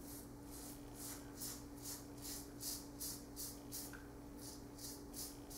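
Merkur 34C double-edge safety razor scraping through about a day and a half of lathered stubble in short strokes, a quick rasp about two to three times a second, over a faint steady hum.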